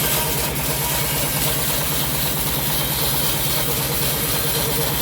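Homemade bandsaw sawmill running steadily, its engine drive giving an even, regular low throb with a constant mechanical hum.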